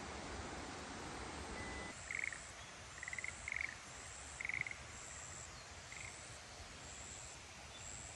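A frog croaking in about five short rattling calls, a few bunched together, over quiet outdoor ambience with a faint high tone repeating above it. A steady hiss fills the first two seconds, then drops away.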